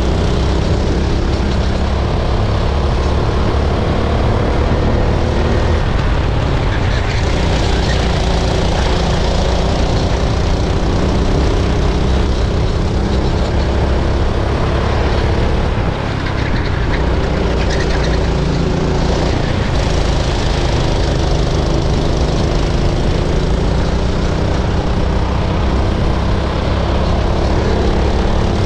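Racing kart engine running flat out, heard close from on board, its pitch climbing on the straights and falling away as the driver lifts for corners, over and over; a brief drop about halfway through.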